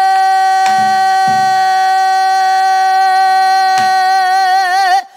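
A female pansori singer holds one long, high sung note. It wavers into a widening vibrato over its last couple of seconds and breaks off near the end. Three strokes of the buk barrel drum accompany it.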